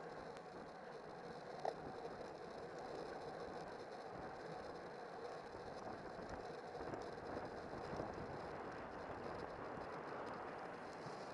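Road racing bicycle riding at speed in a pack: a steady rush of air and tyre noise picked up by a handlebar camera. There is a single sharp click about a second and a half in.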